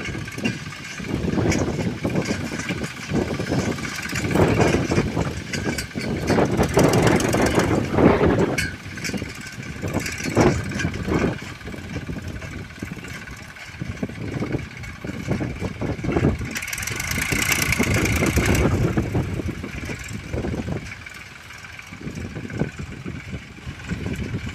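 Massey Ferguson 241 DI tractor's three-cylinder diesel engine running under load while it pulls a single-shank tillage implement through dry field soil. The sound swells and fades as the tractor moves.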